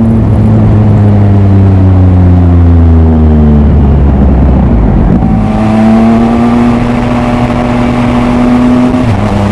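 Triumph Speed Triple RS inline three-cylinder engine running through twin Arrow silencers. Its revs fall over the first few seconds, it goes rough briefly midway, then it runs steadily again and drops in pitch near the end. From about halfway through, wind rushes over the microphone.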